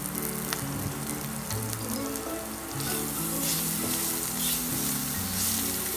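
Hot oil sizzling in a nonstick pan as cumin seeds, green chili pieces, ginger-garlic paste and turmeric fry. The sizzle grows louder from about three seconds in as a silicone spatula stirs the spices through the oil.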